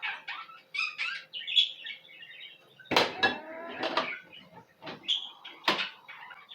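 Containers and jars knocking and clinking as they are put back onto refrigerator shelves and into the door, with two sharper knocks about three seconds in and near the end. Short high chirping calls from an animal sound in the background throughout.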